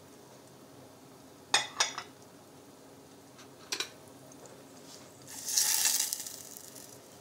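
Two light knocks and a later click of a cup and utensils against hard kitchen surfaces, then about a second of a spoon stirring and scraping in a small stainless-steel saucepan of butter and sage melting over a low gas flame.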